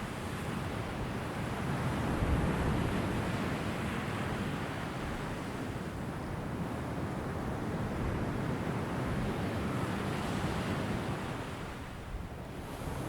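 Ocean surf: waves breaking and washing in a continuous rush, swelling about two seconds in and easing briefly near the end.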